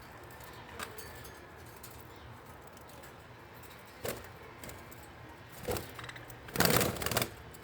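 Small caged ornamental birds moving about, giving short jingling, rattling bursts: three brief ones, then the loudest, lasting about half a second near the end.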